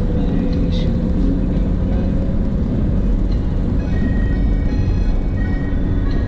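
Car engine and road noise inside the moving car's cabin: a steady low rumble.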